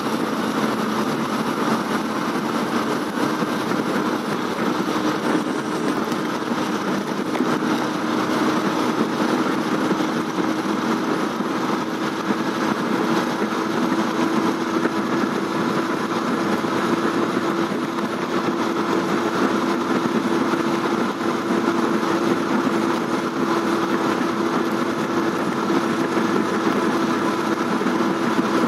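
Steady engine and road noise heard from inside a moving vehicle, with a low hum that slowly rises in pitch.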